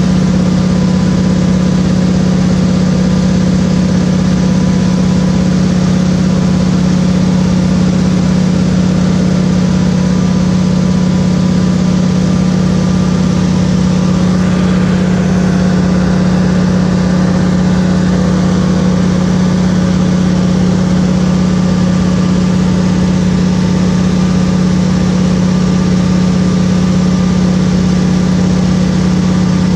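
Single-engine propeller plane's engine and propeller droning steadily in flight, heard from inside the cockpit as a loud, even low drone.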